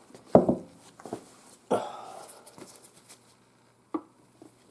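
Plastic snapping and crackling as a small screwdriver pries the clear lens up off a heated Jeep Cherokee turn signal housing, pulling it away from the softened butyl rubber sealant. There is a sharp snap near the start, a crackling pull that fades over about a second, and a smaller click near the end.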